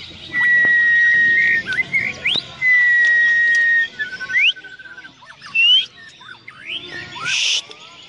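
Shama (murai batu) singing: two long, steady, clear whistles of about a second each, then quick rising and falling notes and a lower trill, with a short harsh burst near the end.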